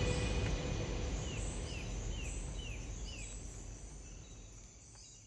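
A bird calling in a string of short, falling chirps, about two a second for five calls, over a low background noise of the open air, all fading out.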